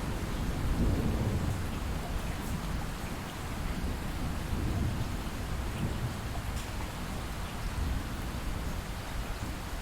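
Steady light rain falling, with distant thunder rumbling low underneath. The rumble is strongest in the first couple of seconds, swells again midway, then dies away.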